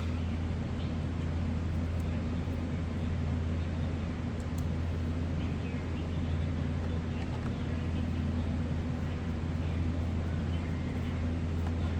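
A steady low hum with a few faint light clicks.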